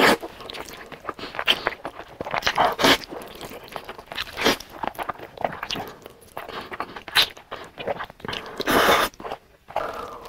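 Close-miked eating sounds from a big mouthful of black bean noodles: a loud slurp at the start, then a run of wet chewing and smacking, with a louder burst of eating noise near the end.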